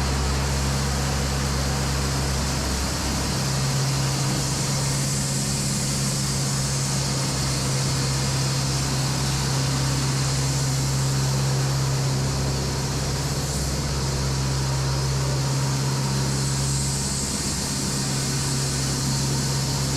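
Echo 45HD2 band sawmill running and sawing a log down into a cant, a steady mechanical drone with a low hum. The hum grows stronger about three seconds in and eases near the end.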